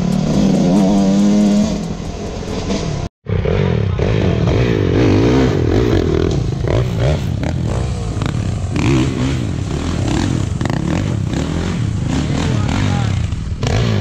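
Dirt bike engines running and revving, their pitch rising and falling with the throttle. The sound drops out completely for a moment about three seconds in, then more engines rev unevenly.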